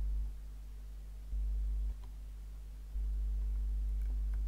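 Low, steady electrical hum that steps up louder for stretches and drops back down: louder at the start, again briefly after a second, and from about three seconds in. A few faint ticks come near the end.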